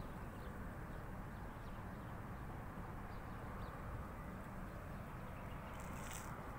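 Faint, steady outdoor background noise, a low even hum with a few faint high chirps scattered through it and a brief rustle near the end.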